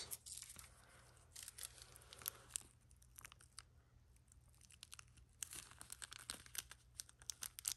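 Small plastic parts bag crinkling as it is handled in the fingers: faint, scattered crackles in two spells, for the first two and a half seconds or so and again from about five and a half seconds in.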